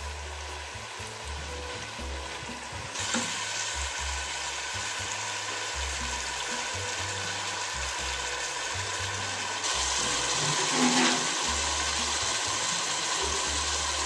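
Capsicum, onion and ketchup sauce sizzling in a pot over the heat while a wooden spoon stirs it. The sizzle grows louder about three seconds in and again near ten seconds.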